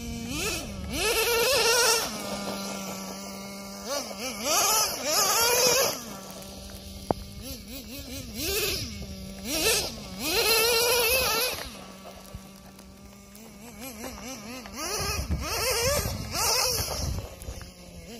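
Traxxas Jato 3.3 nitro RC buggy's small two-stroke glow engine idling with a steady hum, then revving hard in five bursts of a second or two each, the pitch climbing and dropping as the buggy accelerates and slows.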